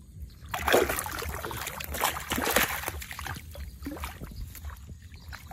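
Splashing and sloshing of a hand groping in shallow muddy water among grass, loudest in the first three seconds, then softer crackling and rustling of wet grass stems.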